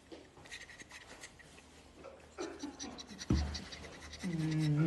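Light scratching and rustling in quick little ticks, then a single thump about three seconds in.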